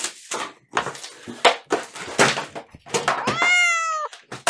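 Plastic packaging bags and box contents being handled on a table, with irregular crinkling rustles and knocks. About three seconds in, a single drawn-out pitched call, like a cat's meow, rises and then dips slightly before it cuts off.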